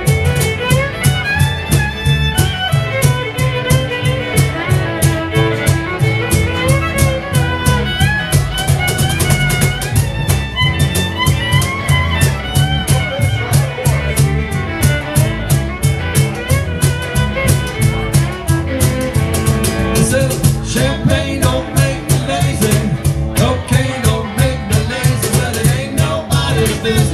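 Live acoustic Americana band playing with fiddle, upright bass, guitars and a cajon keeping a steady beat.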